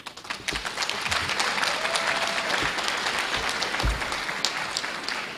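A seated audience applauding: many hands clapping together, starting suddenly and beginning to fade near the end.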